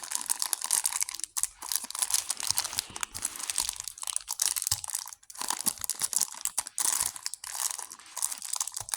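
Plastic packaging bag crinkling and crackling as it is torn open and handled, in irregular spells broken by short pauses.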